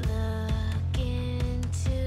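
Background music: sustained notes that change about a second in and again near the end, over a steady bass and a light beat.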